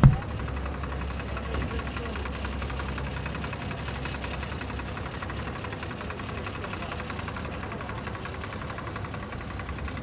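An engine idling steadily, with a sharp thump right at the start.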